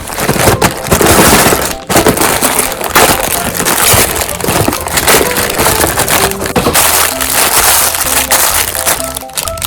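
Meat grinder crushing and grinding something that crackles and crunches throughout, over background music.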